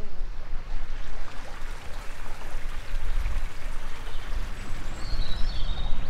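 Outdoor garden ambience: a steady rushing noise with wind rumbling and buffeting on the microphone, and a bird chirping briefly about five seconds in.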